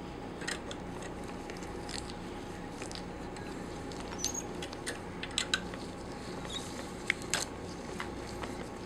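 Scattered small clicks and scrapes of a hand tool turning the screws that draw a Pfeiffer vacuum pump's piston block down onto its base. The clicks come irregularly over a steady low hum, with a few sharper ticks in the second half.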